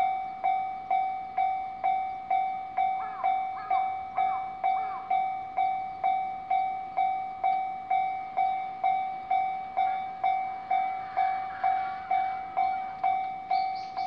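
Japanese level-crossing warning bell ringing in a steady rhythm, about two strikes a second, each a clear ringing tone that dies away before the next: the alarm that sounds while the barriers close ahead of an approaching train.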